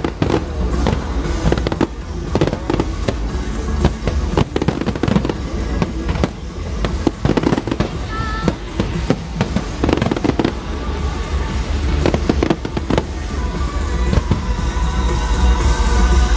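Fireworks display: aerial shells bursting in quick, irregular succession, dense bangs and crackle with no pause, with music playing underneath.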